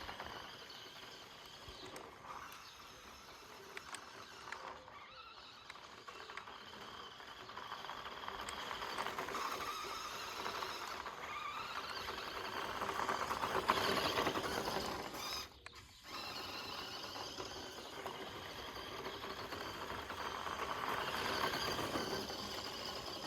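Toy-grade 1:14-scale Audi RS Q e-tron RC car's electric motor and gears whining, rising and falling in pitch as the throttle is worked. The sound cuts out briefly about two-thirds of the way in.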